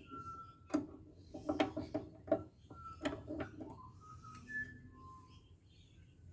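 Hand tools clicking and knocking against the inverter's metal parts during dismantling, several sharp strikes with a short ring, mostly in the first half. Brief high single-pitch tones come between them, one gliding upward in the second half.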